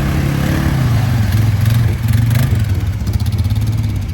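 ATV engine running steadily at low revs, its pitch easing down slightly about a second in.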